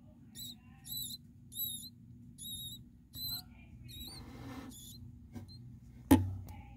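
Six short, high-pitched warbling chirps at about one a second, followed by a brief rustle, then a single sharp knock near the end, which is the loudest sound.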